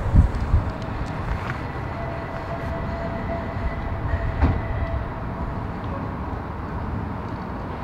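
Low rumble of a train running, with a couple of heavier knocks and a faint steady hum from about two to five seconds in.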